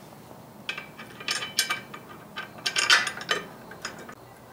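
Irregular sharp metallic clicks and clinks of hand tools against the bolts on the back of a rear wheel hub and brake assembly.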